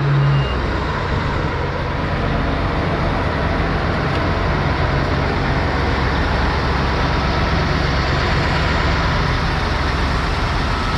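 Heavy farm machinery, tractor and forage harvester engines, running steadily with a low drone.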